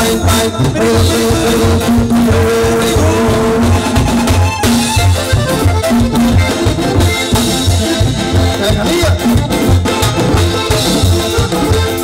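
Live norteño banda playing a cumbia: accordion melody over a sousaphone bass line, with congas, drum kit and guitar keeping a steady dance beat.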